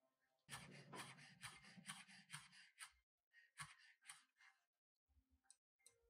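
Kitchen knife chopping green onions on a wooden cutting board. A quick run of chops starts about half a second in and lasts a couple of seconds, followed by a few slower, separate cuts.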